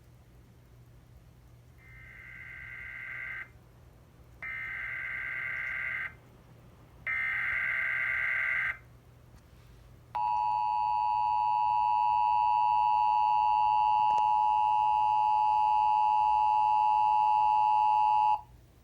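Emergency Alert System activation: three short bursts of SAME header data tones, harsh warbling squawks each about a second and a half long, followed by the EAS two-tone attention signal, a loud steady dual tone held for about eight seconds before it cuts off. Together they announce an incoming emergency alert broadcast.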